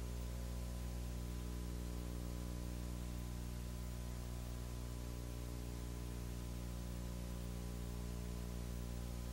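Steady electrical hum with a ladder of overtones, under an even hiss. This is the recording's own background noise, with no other sound standing out.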